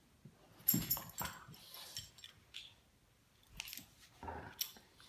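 A Great Pyrenees and a smaller dog play-fighting: short bursts of mouthing and scuffling with collar tags jingling, loudest about a second in and again near the end.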